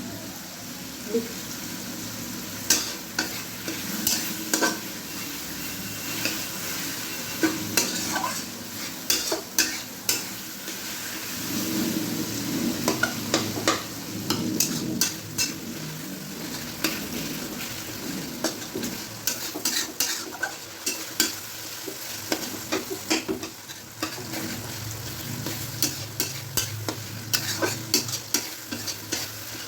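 Onions, tomatoes and green chillies sizzling in hot oil in a large kadai, with a steady frying hiss, while a stirring utensil scrapes and clicks against the pan many times as the tomatoes are mashed in.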